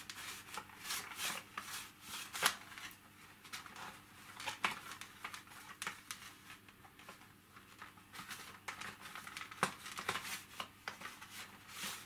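Damp cloth rubbing and wiping over the plastic of a Dyson V7 Motorhead cleaner head, with irregular rustles and light clicks as the parts are handled.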